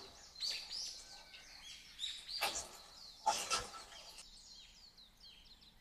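Small birds chirping over and over in short high notes, with two brief noisy bursts about two and a half and three and a half seconds in.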